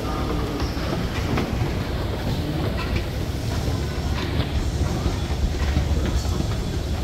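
Passenger train running on rails: a steady low rumble with scattered clicks from the wheels on the track.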